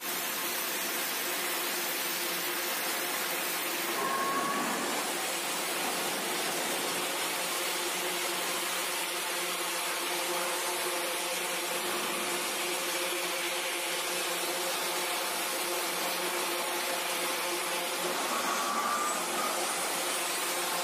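Twin jet engines of an F/A-18 fighter running at low power as it taxis: a steady rushing whine with several humming tones under it. A short rising whistle comes through about four seconds in and again near the end.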